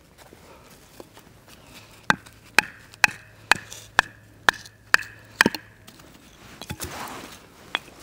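Small firewood being chopped: a run of eight sharp strikes about two a second, each with a short ringing tone, then a few lighter knocks near the end.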